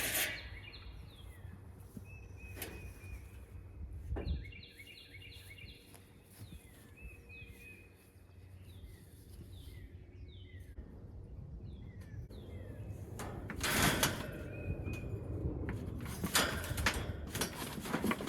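A small bird chirping over and over in short falling notes, with a few sharp knocks and clunks in between; the loudest knocks come about 14 seconds in and again a couple of seconds later.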